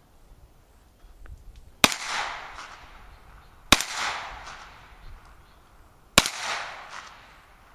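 Three shots from a Hi-Point 9mm carbine, about two seconds apart, each trailing off in a short echo.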